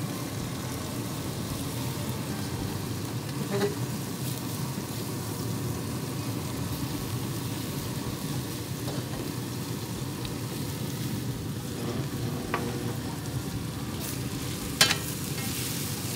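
Flat iron steaks sizzling on the grill grates over open flame, with sliced onions and bell peppers frying in a small stainless pan, a steady sizzle. Twice, about four seconds in and near the end, the metal tongs click sharply against the pan or grate.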